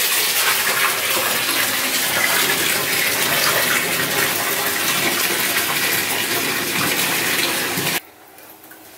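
Bathtub tap running, water pouring steadily into the filling tub. It cuts off abruptly near the end.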